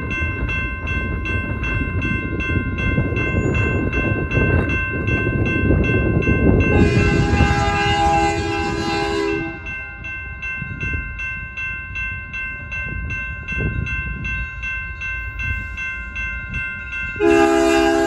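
Locomotive's Nathan K5HL five-chime air horn sounding a chord, one long blast of about two and a half seconds starting about seven seconds in, then another blast beginning near the end, over a low rumble and steady ringing.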